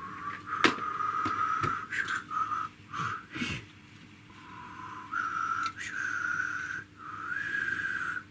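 A person whistling a slow tune, a series of held notes that step up and down with short breaks between them. A few sharp clicks from handling small parts on the workbench, the loudest about half a second in.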